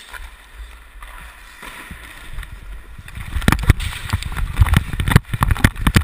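Skates gliding and scraping on ice as heard through an action camera's microphone, then from about three seconds in a teammate grabs the camera, and glove and jersey knock and rub against it in a quick string of loud thumps and rustles.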